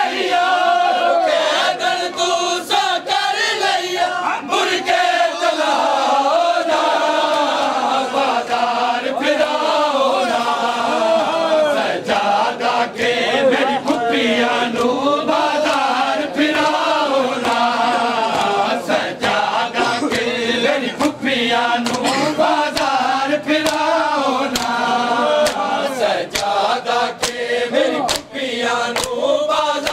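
Group of men chanting a mourning lament (noha) together, with sharp slaps of hands on bare chests (matam) throughout.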